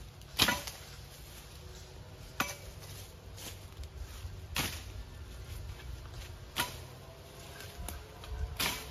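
A long-handled curved reaping blade swung through leafy undergrowth. Five sharp swishing cuts come about every two seconds, the first the loudest.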